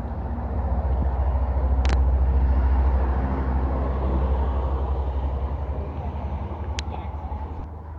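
Low engine rumble of a passing motor vehicle, building over the first couple of seconds and fading toward the end, with two sharp clicks, one about two seconds in and one near the end.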